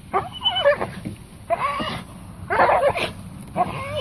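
Red-nose pit bull giving about four short, high-pitched whining cries, each under a second and wavering in pitch, as it hangs by its jaws.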